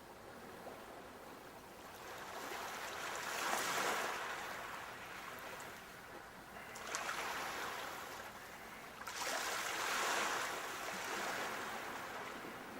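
Sea waves breaking and washing on the shore, the surf hiss swelling and fading in three surges a few seconds apart.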